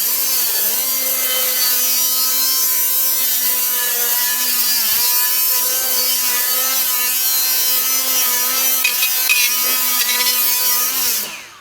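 An angle grinder with an 80-grit flap disc sanding the crust off a rusty brake drum: a steady motor whine with a hiss of abrasive grinding. The pitch dips briefly twice where the disc is pressed in, and near the end the grinder winds down.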